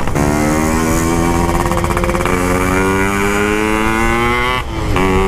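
Yamaha RX-King two-stroke single-cylinder motorcycle with an aftermarket PK 2 exhaust, heard from the saddle while riding. The engine note climbs as it accelerates, drops at a gear change about two seconds in, climbs again, and dips briefly near the end before holding steady.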